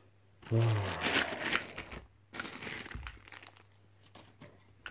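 Cardboard shipping box and its paper packing being handled and crumpled. The rustling comes in two spells over the first three seconds, then fades to a few small sounds.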